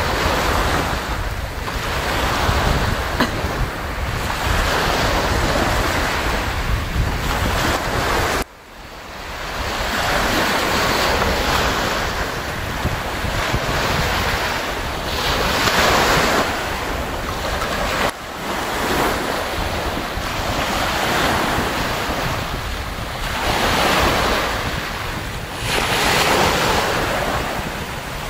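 Small waves breaking and washing up a gravel-and-shell beach, the surf swelling and fading every few seconds, with wind buffeting the microphone. The sound breaks off briefly about eight seconds in.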